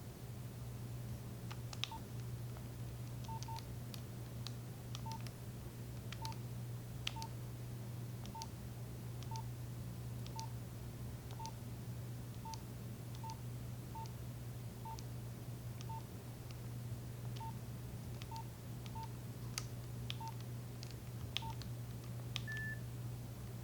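Nokia 3395 mobile phone's keypad tones: a short beep at one pitch with the click of each button press, roughly one press a second, and a single higher beep near the end. A steady low hum runs underneath.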